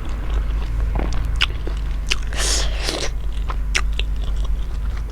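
Close-miked chewing of a buff momo, with short wet mouth clicks and smacks throughout and a half-second hiss about halfway through, over a steady low hum.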